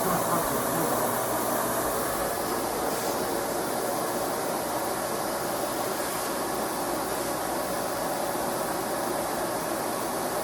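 Kenmore 400 Series canister vacuum running steadily, an even motor-and-suction noise with no change in pitch or level.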